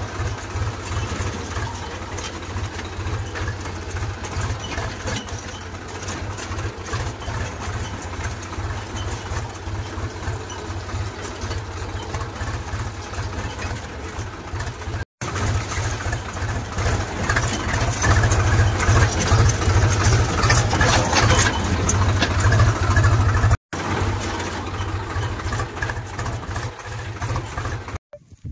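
Farm tractor's diesel engine running under way, a steady rapid low pulse from the exhaust; it grows louder for several seconds past the middle.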